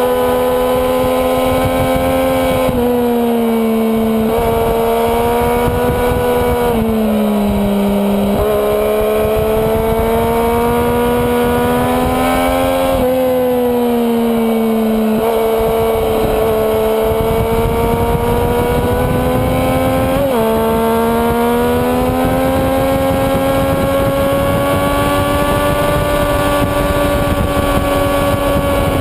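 Sport motorcycle engine held at high revs with wind rush on the onboard camera. The pitch rises and falls through the corners, with a few sudden steps where gears change.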